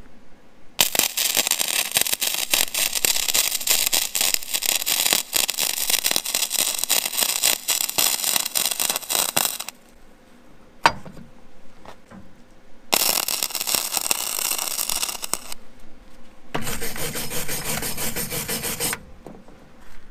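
Wire-feed welding arc from a Vulcan OmniPro 220 running .035 wire, crackling as beads are laid on steel square tube. Three welds: one long bead of about nine seconds near the start, then two shorter ones of two to three seconds each in the second half, with a sharp click in the pause between.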